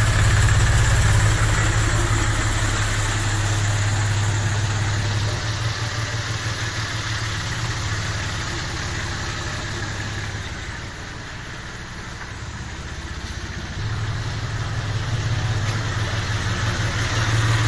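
John Deere 5310 tractor's three-cylinder diesel engine running at low revs as the tractor is manoeuvred and backed up. It fades somewhat in the middle and grows louder again near the end as the tractor comes close.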